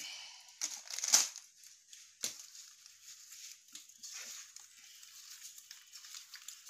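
A bare hand mixing raw fish pieces with salt in a steel plate: irregular wet rubbing and scraping of the fish, with a louder scrape about a second in and a sharp knock against the metal plate a little after two seconds.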